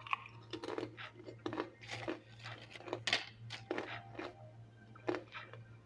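Crisp homemade potato chips crunching, about ten short, sharp crunches at irregular intervals, roughly two a second.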